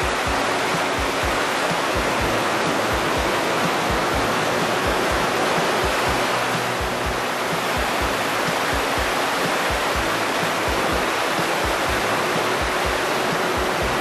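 Steady rushing of a mountain waterfall pouring onto rock close by.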